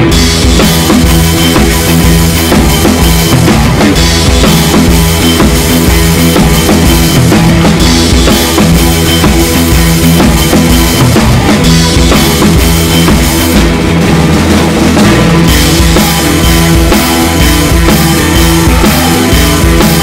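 Loud background rock music with a driving drum kit beat: bass drum and snare.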